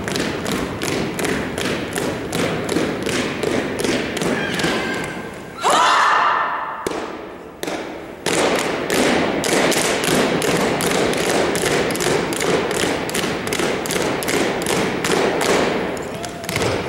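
Drill team's boots stomping and striking in unison on a hardwood gym floor, in a steady fast rhythm of about three to four beats a second. About six seconds in a loud shouted command cuts through, the stomping thins out for a second or so, then resumes.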